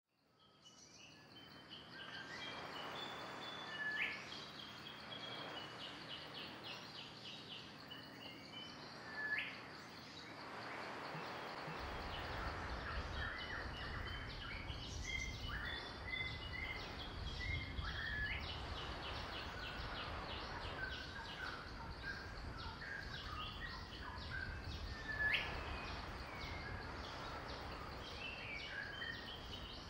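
Birdsong ambience: several birds chirping and whistling, with a few loud rising whistles, over a steady hiss. It fades in at the start, and a low rumble joins about twelve seconds in.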